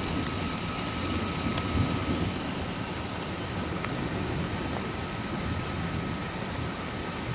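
Heavy rain pouring steadily in a thunderstorm, with a low rumble of thunder underneath and the odd drop ticking close by.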